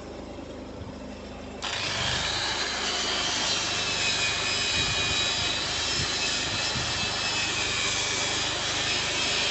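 Over a low engine idle, a harsh steady metalworking noise with a high wavering whine in it starts abruptly about one and a half seconds in and keeps going.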